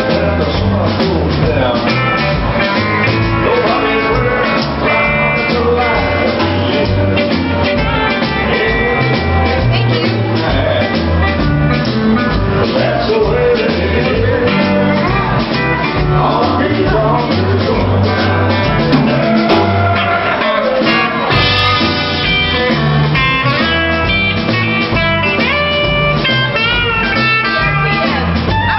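Live country band playing: a man singing over electric guitar, upright bass and drums. About two-thirds of the way through, the singing stops and the electric guitar takes a lead run.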